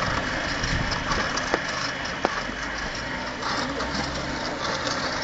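XZ38 squeeze hose pump running steadily while it transfers mud through its hose, with two sharp clicks less than a second apart about a second and a half in.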